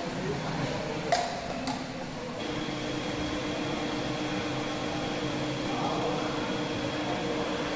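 Metal lathe running with a steady hum and a thin high whine. Two sharp metallic clicks come a little over a second in.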